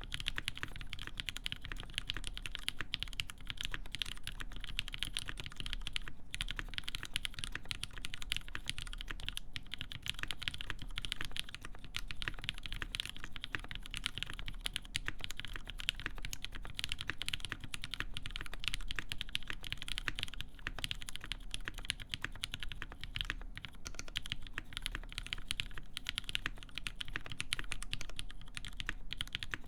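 Continuous fast typing on a mechanical keyboard with lubed linear Cherry MX Black switches in a full aluminum plate and GMK keycaps: a steady stream of key clacks with no pauses.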